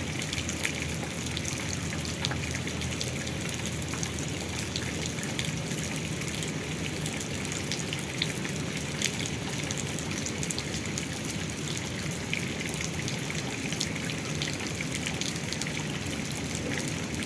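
Steady rain falling, with a constant patter of many small drops.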